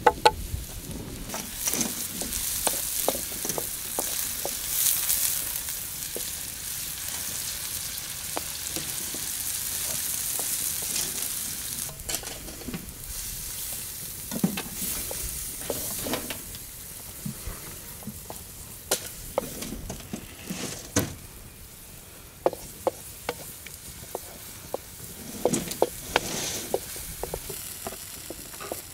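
Sliced mushrooms sizzling in a black pan over a wood fire, loudest in the first dozen seconds and then quieter. A wooden spatula stirs them and knocks against the pan, giving scattered clicks and knocks.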